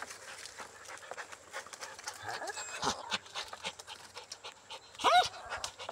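Dog scrabbling up a palm trunk, its claws scratching and catching on bark and dry fronds in a run of small clicks. About five seconds in there is one short yelp that rises and falls.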